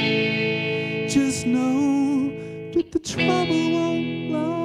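Electric guitar playing held, ringing chords, with a short break and a fresh strum about three seconds in. A wordless vocal line wavers over the guitar.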